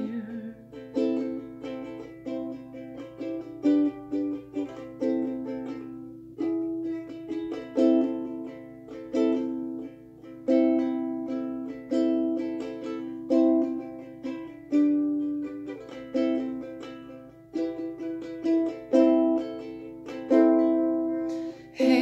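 Solo ukulele playing an instrumental break between sung verses: chords in a slow, steady rhythm, each one ringing and fading before the next.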